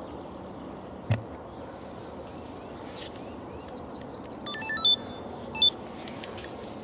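A songbird sings one phrase: a run of quick, high, descending notes that speeds up and ends in a short flourish, over a steady outdoor hiss. A single sharp knock about a second in.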